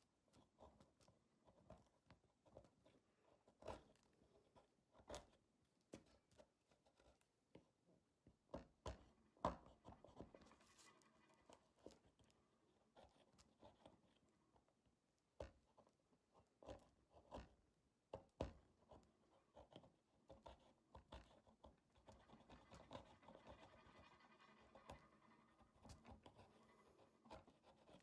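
Faint, irregular scraping and clicking of a small hand gouge cutting shavings from a soft-wood spoon blank, with a few sharper clicks and denser scraping near the end.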